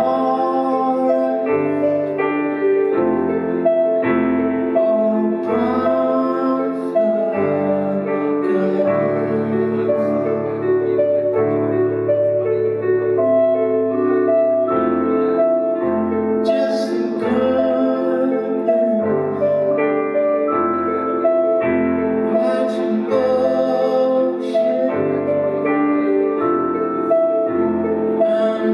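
Live piano ballad: slow piano chords with a bass note changing every second or two, and a man singing over it in phrases.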